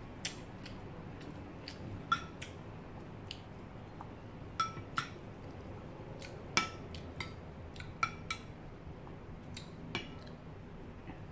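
Metal spoon clinking against a glass food container as food is scooped and stirred: about a dozen irregular clinks, some with a short ring.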